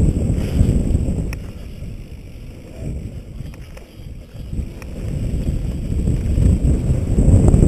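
Wind buffeting the helmet camera's microphone as a mountain bike rolls fast down a dirt trail, a low rumble with a few light clicks. It eases off in the middle and builds again toward the end.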